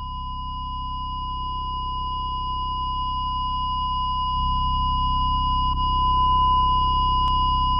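Electronic soundtrack tone: a steady high pure tone held over a low synthesized drone that swells and grows gradually louder.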